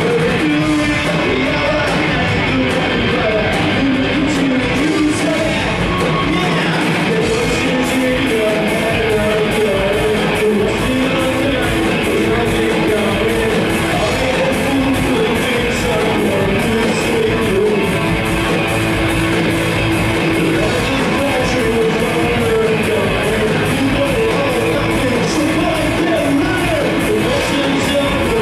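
Live rock band playing: electric guitars, bass and drums at a steady beat, loud through the club PA.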